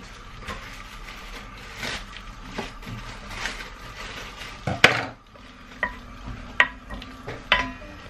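Butter sizzling faintly as it melts in a cocotte on a gas hob, with a few sharp clicks and knocks of kitchen utensils, the loudest about five seconds in.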